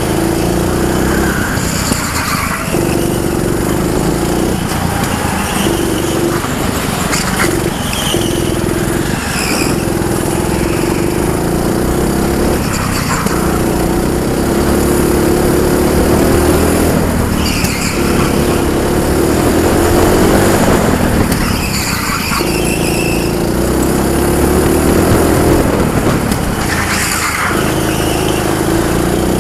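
Junior go-kart engine heard onboard, running hard along the straights and dropping off briefly every few seconds as the driver lifts for the corners, with a few short high squeals.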